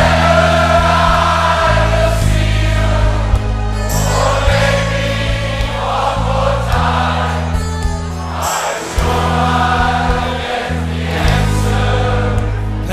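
Live pop band playing, with a large crowd singing along in chorus over the band's steady bass line.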